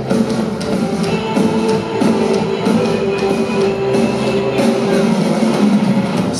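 Live rock band playing an instrumental passage: electric guitars, bass and a drum kit with steady drum hits.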